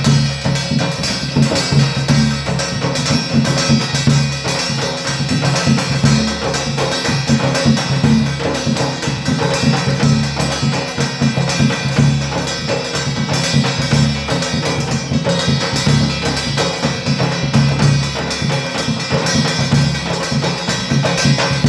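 Rajasthani dhol and thali played together: a dhol barrel drum and a brass thali plate struck with sticks in a fast, steady folk rhythm. Low drum strokes run under sharp, dense plate strikes.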